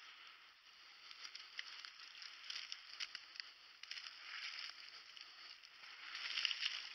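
Faint rustling and crackling of dry corn stalks and leaves brushed by a person moving slowly through them, getting louder about six seconds in.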